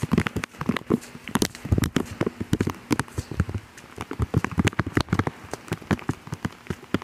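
Bare feet walking quickly through wet, muddy grass: a fast, irregular run of footfalls and soft thuds, several a second.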